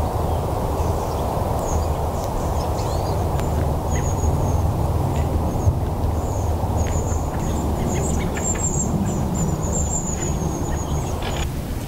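Small birds chirping in repeated short, high calls, more often in the second half, over a loud, steady low rushing noise.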